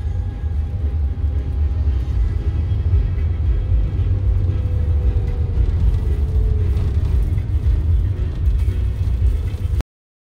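Steady low road and engine rumble inside a moving car's cabin, with faint music over it. The sound cuts off briefly near the end.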